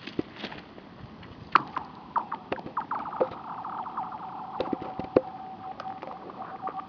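Stones thrown onto thin lake ice: sharp clicks as they strike, then a quick run of falling, laser-like chirps that settle into a steady high ringing as a stone skids away across the ice. This is the singing of thin, clear ice.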